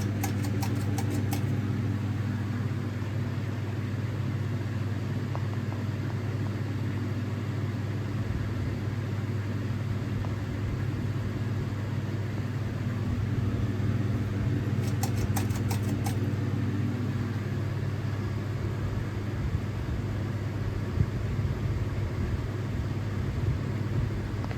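Sears Roebuck ceiling fan running, its motor giving a steady low hum. A quick run of faint clicks comes twice, near the start and about halfway through.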